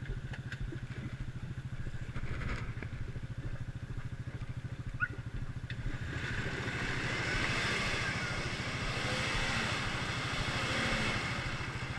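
Jeep Wrangler engine running at a steady, pulsing idle close by; about six seconds in a louder rushing noise rises as the jeep drives off through the mud.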